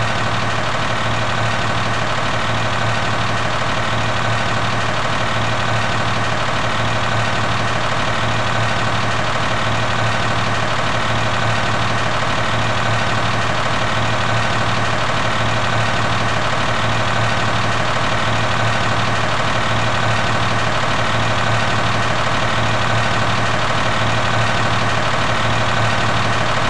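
Concrete mixer truck's diesel engine running steadily with an even low drone.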